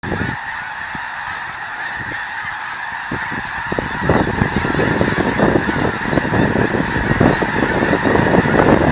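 A huge flock of snow geese calling in a dense, continuous chorus of honks. About four seconds in, a low rush of wingbeats joins and grows louder as the flock lifts off.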